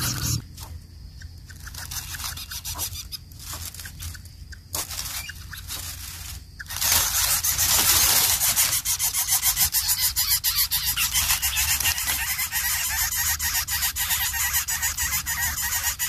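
Lesser coucal nestlings giving harsh, rasping begging calls, fairly quiet at first and then loud and continuous from about seven seconds in.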